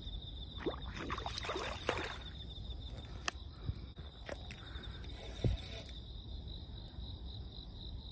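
Water splashing in short irregular bursts as a large hooked softshell turtle struggles at the surface, with a few sharp knocks in the middle. A steady high trill goes on behind it.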